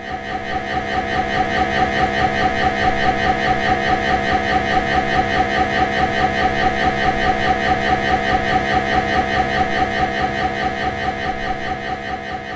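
MRI scanner gradient coil running a pulse sequence: a loud, steady buzzing tone that pulses rapidly and evenly, fading in at the start and beginning to fade near the end.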